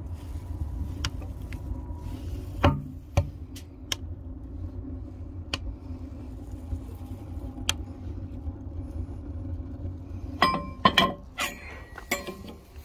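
Wood fire burning in a homemade wood-burning stove, with scattered crackles and pops over a low rumble. A cluster of sharp, ringing metallic clinks comes about ten to twelve seconds in.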